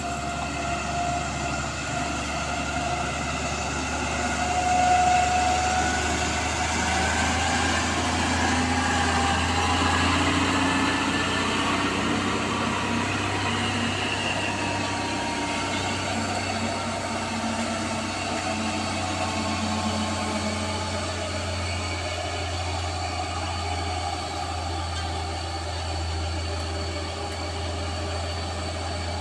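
Diesel truck engines running under load as a Mitsubishi Fuso tanker tows a stalled, overloaded small diesel truck up a steep climb. The sound is a steady engine drone that swells about five seconds in.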